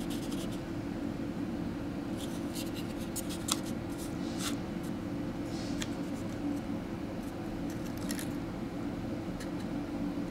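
Fingers handling a miniature paper pizza box and folding it shut: scattered light clicks and rustles of thin card over a steady low hum.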